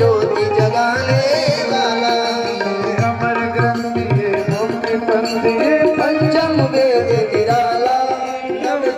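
Devotional aarti music: singing with harmonium and a hand drum keeping a steady beat, played loud through a PA loudspeaker.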